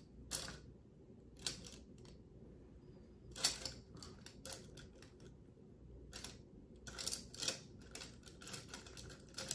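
Light, scattered clicks and taps of makeup containers being handled while searching for an eyeshadow. The loudest comes about three and a half seconds in, with a quicker run of clicks near the end.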